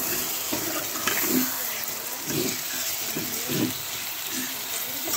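Freshly washed raw chicken pieces sizzling in hot oil and spice masala in a pot while being stirred with a metal spoon, with several short scrapes of the spoon against the pot.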